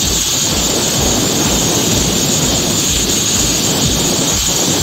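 Angle grinder with a flap disc grinding the rusty metal of a bench vise jaw, running steadily under load with a continuous grinding hiss.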